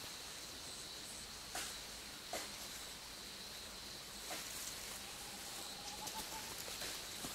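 Quiet night-time forest ambience: a steady high-pitched insect drone over faint hiss, with a few soft clicks and a faint, slightly rising whistle about five seconds in.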